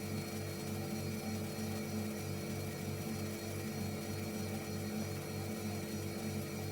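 Refrigerator running: a steady electrical hum with a slight regular pulsing, about three or four beats a second.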